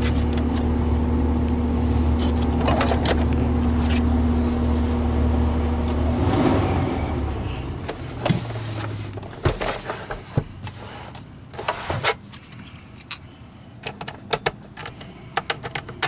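Wessel-Werk EBK 360 electric power brush running with a steady hum, switched off about six seconds in and winding down. Scattered clicks and knocks follow as the head is handled.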